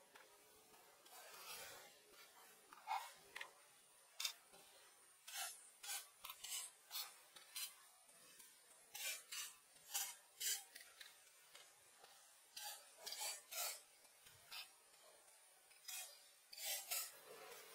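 Faint pencil scratching on paper: short, irregular strokes, some in quick runs of three or four, as a drawing is shaded.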